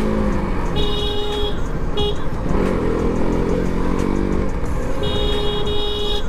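Motorcycle engine running and revving up and down under heavy wind rush on a helmet-mounted mic, with a vehicle horn honking: a short honk about a second in, a brief toot at two seconds, and a longer honk near the end.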